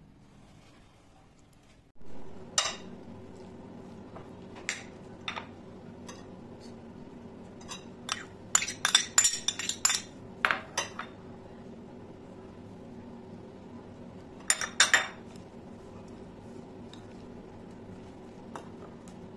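A metal spoon clinking and scraping against a porcelain plate and small glass bowls while chopped onion and garlic are spooned onto minced meat and stirred in. The clinks come one at a time, with a quick run of them in the middle, over a faint steady hum that starts about two seconds in.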